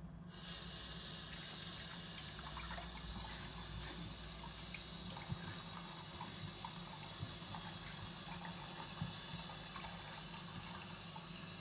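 Kitchen tap running steadily into a sink. It turns on abruptly just after the start, with a few faint knocks under the flow.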